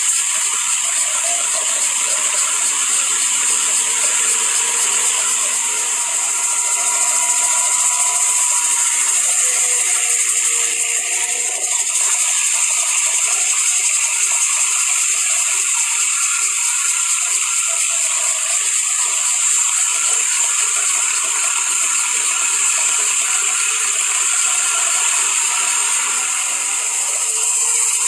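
Homemade helicopter's small engine and rotor running with a loud, steady mechanical rattle, the engine speed rising and falling at times.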